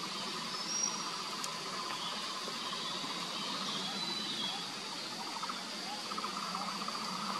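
Forest insects chirring: a steady high-pitched drone over a lower, rapidly pulsing trill, with a few short high chirps.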